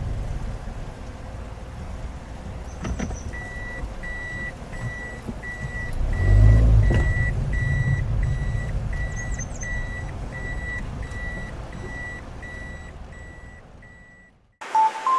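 A car's reverse-gear warning beeper sounding a steady high beep about twice a second over low engine and road rumble, the sign that the car is backing up. A heavier low rumble swells about six seconds in, and the sound fades out near the end.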